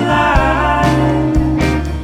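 Background music: a rock song with drums and a gliding lead line, likely a guitar, with no singing.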